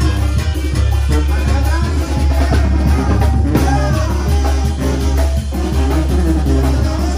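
Live Mexican brass banda playing a carnival dance tune: trumpets, trombone, clarinets and sousaphone over drums, with a steady bass and beat.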